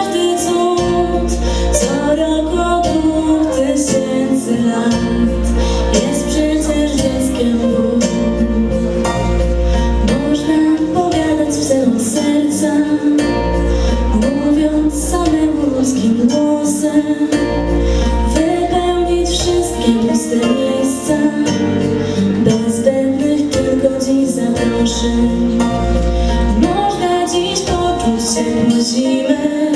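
A girl singing a Polish Christmas carol into a handheld microphone, her amplified voice carrying a smooth, gliding melody. Under it runs instrumental accompaniment with a bass that pulses every couple of seconds.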